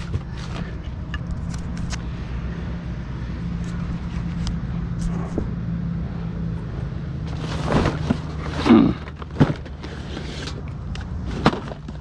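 A steady low engine hum, with scattered knocks and rustles of scrap being handled and a louder cluster of knocks near the end.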